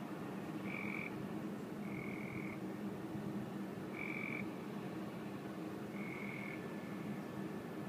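Four short, high-pitched calls, each about half a second long and one to two seconds apart, from an animal calling at night, over a steady low hum.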